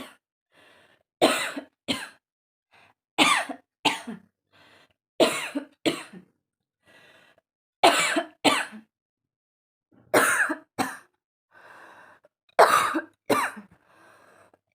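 A woman coughing on purpose: six pairs of hard coughs, each pair about two seconds after the last, with faint breaths between. These are forced coughs done for a coughing challenge.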